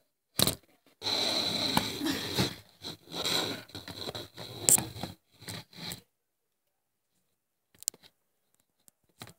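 Scraping and rustling for about five seconds, starting about a second in, then two faint clicks near the end.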